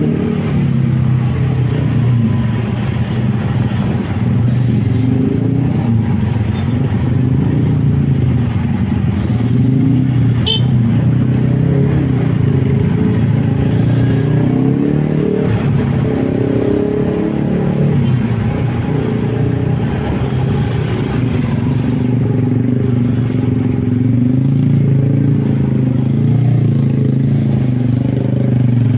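Motorcycle engine running in slow stop-and-go traffic, its pitch rising and falling with the throttle, with other motorcycles and cars around it. A brief high squeal about ten seconds in.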